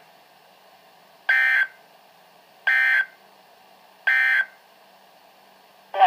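NOAA Weather Radio SAME end-of-message data bursts through a Midland weather radio's speaker: three short, identical, harsh digital bursts about a second and a half apart, signalling the end of the warning broadcast.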